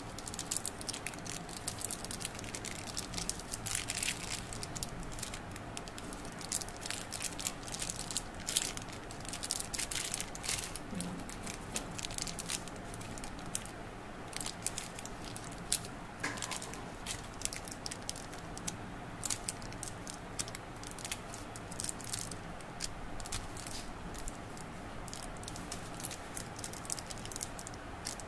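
Shiny plastic candy wrappers crinkling as individually wrapped sweets are picked up and handled: a run of quick, irregular crackles, thicker in the first half.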